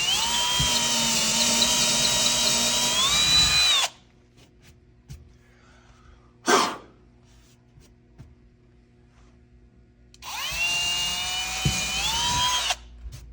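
Electric drill boring a hole into a wooden wall stud in two runs of a few seconds each, its motor whine rising in pitch near the end of each run. Between the runs comes a short loud whoosh.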